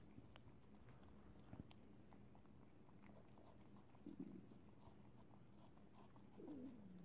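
Near silence with faint, scattered wet clicks of a seal-point cat licking and chewing watermelon flesh from the rind. A short, low, falling voice-like sound comes near the end.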